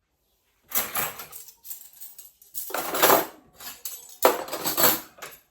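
Dishes and cutlery clattering as they are handled, in four bursts starting about a second in.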